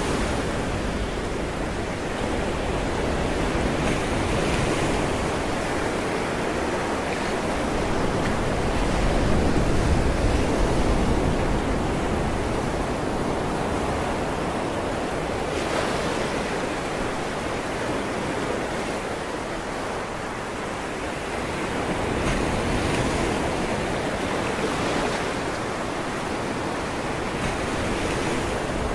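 Sea waves washing on a shore: a steady rushing that swells and eases every several seconds.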